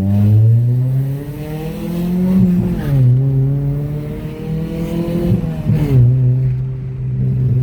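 Chevrolet Vectra GLS 2.0 four-cylinder engine breathing through a 4-into-1 header and sport muffler, accelerating through the gears. The pitch climbs, drops at an upshift about two and a half seconds in, climbs again, drops at a second upshift near six seconds, and then holds steady.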